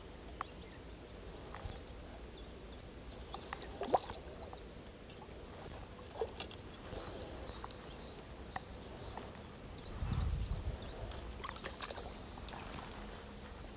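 A hooked roach splashing faintly at the water's surface among the reeds as it is drawn in and landed, with scattered knocks and rustling of dry reeds; a dull rumble and rustle about ten seconds in.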